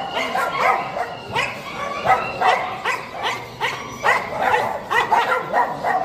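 Caged pet-market animals calling: a dense chorus of short calls that fall in pitch, several a second and overlapping.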